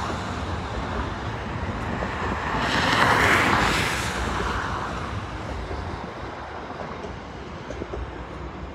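Freight train's container wagons rolling along the track: a steady rush and rumble of wheels on rail that swells about three seconds in, then slowly fades.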